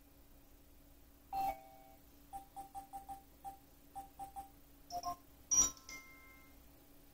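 Short electronic tones from a smartphone alarm app: one ringing tone, then a quick run of about nine short beeps, then a few brighter chime notes, the loudest ringing on for about a second.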